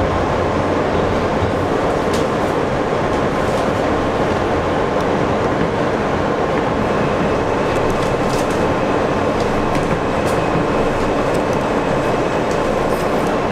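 New York City subway train running through a tunnel, heard from inside the front car: a steady, loud rumble of wheels on rails with scattered sharp clicks. A faint thin high tone joins about halfway through.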